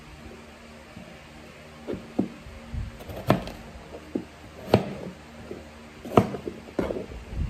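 Kitchen knife slicing raw potatoes on a plastic cutting board, the blade knocking sharply on the board about seven times at irregular intervals.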